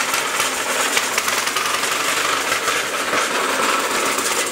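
Single-cylinder air-cooled four-stroke engine on the motor wheel of a 1920 Briggs & Stratton Flyer, running steadily with a fast, dense clatter.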